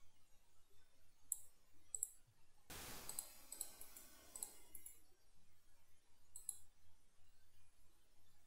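Faint computer mouse clicks, a few scattered through, with a brief rush of noise about three seconds in.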